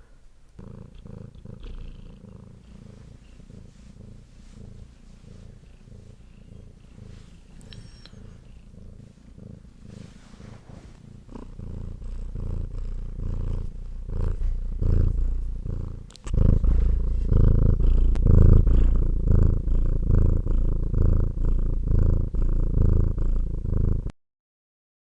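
Domestic cat purring close to the microphone, a steady low rhythmic rumble. It grows louder about halfway through, jumps much louder about two-thirds of the way in, and cuts off abruptly shortly before the end.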